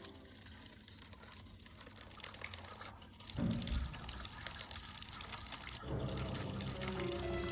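Running water with an even hiss, like a tap filling, and a brief low falling sound about three and a half seconds in.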